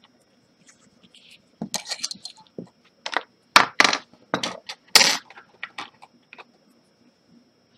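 A quick run of sharp clicks and clinks as an iPhone 6 Plus logic board and small hard tools are handled and set down on the workbench close to the microphone, loudest in the middle and dying away about two-thirds of the way in.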